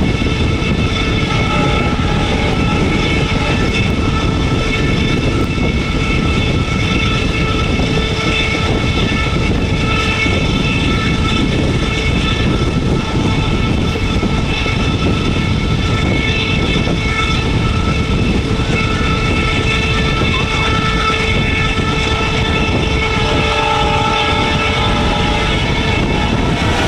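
WDM-3A diesel-electric locomotive, its ALCO 251 V16 turbocharged engine running under load, a steady heavy rumble with a steady whine over it, mixed with the rolling noise of the train.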